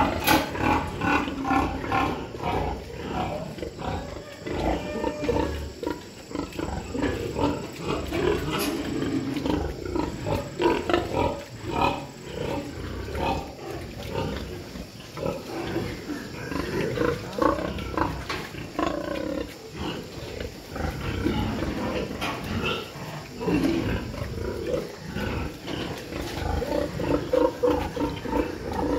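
Pigs, young breeding sows in their pens, grunting and calling, the calls overlapping one another without a break.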